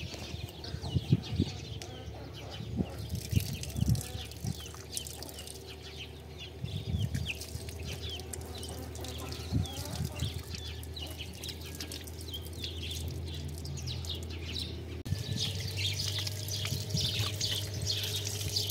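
Small birds chirping over and over, with water from an outdoor tap running and splashing over hands being washed. The water is louder in the last few seconds.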